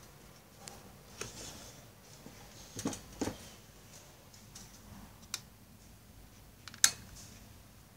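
Scattered clicks and knocks from a Sekai HFN-1050 10-inch high-velocity desk fan being handled by its plastic motor housing and wire grille, with a pair of louder knocks about three seconds in and the sharpest click near the end.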